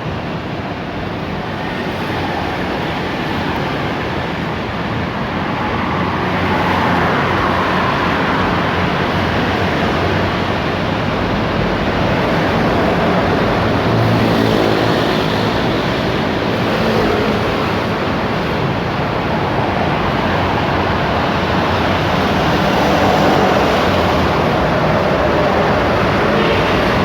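Steady rumble of passing road traffic, with the hum of an engine going by in the middle.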